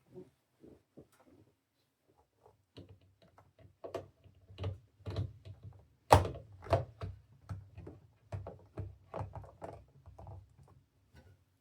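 Irregular clicks, taps and knocks of computer parts being handled and fitted together, with one louder thunk about six seconds in.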